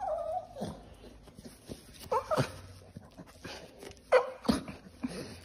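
Staffordshire bull terrier whining in three short, high calls that slide in pitch, with a few small clicks between them.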